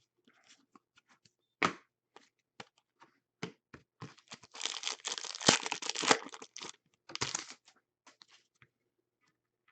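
Foil wrapper of a hockey card pack being torn open and crinkled, in a dense crackly stretch a few seconds in and a shorter one after it. Scattered light clicks and a tap of cards being handled come before it.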